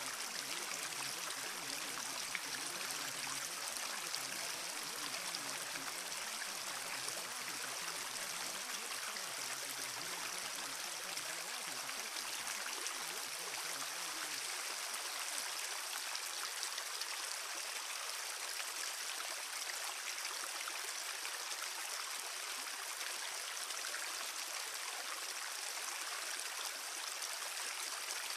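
Steady rushing noise of flowing water, like a stream, even in level throughout; its deeper part drops away about halfway through.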